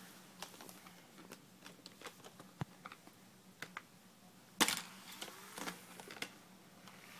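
Light plastic clicks and taps of hands handling a gaming laptop's case and keyboard deck, scattered irregularly, with one louder click a little past halfway.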